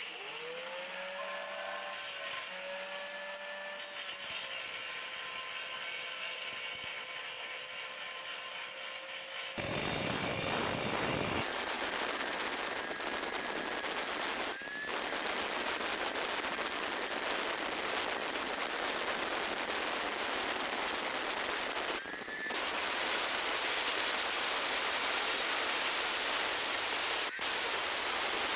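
An electric power tool starts up with a rising whine and runs steadily; about ten seconds in it bites into the work and a harsh, steady hiss takes over, briefly dipping three times.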